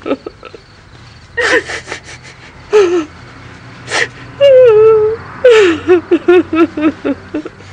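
A woman sobbing hard, with sharp breaths between her cries, one drawn-out cry about halfway through, and a run of short, jerky sobs near the end.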